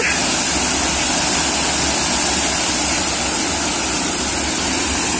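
Park fountain: rings of vertical water jets falling and splashing into the basin, a steady rushing hiss.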